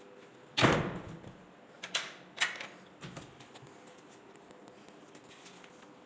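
A wooden door with a lever-handle mortise lock shutting with one sharp clack about half a second in, followed by a few lighter clicks of the lock's latch and handle.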